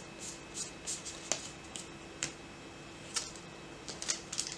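MetaZoo trading cards being flicked through by hand: a string of soft papery clicks and slides at an uneven pace, with a couple of sharper snaps.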